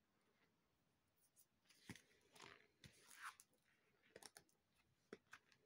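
Faint rustling and soft clicks of paperback cookbook pages being turned and flicked through by hand, starting about a second in.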